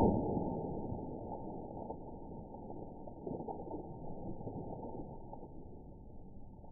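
A water balloon bursting against a cinder-block wall, heard in slow motion: one sudden loud burst, then a long, low, muffled wash of splashing and spattering water that slowly fades.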